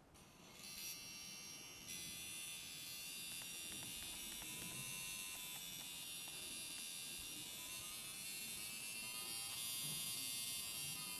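Swiss DC motor of a BRONC V1 wireless rotary tattoo pen running with a needle cartridge fitted, a steady high-pitched buzzing whine. It starts about half a second in, grows louder about two seconds in, and its pitch shifts a little near the end.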